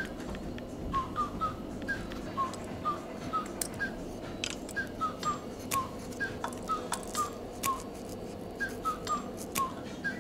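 A tune of short, quick whistled notes at several pitches, some with a slight upward slide, with occasional light clicks underneath.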